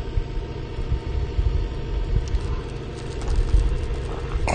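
Wind buffeting an action-camera microphone: a heavy, uneven low rumble, with a short louder noise near the end.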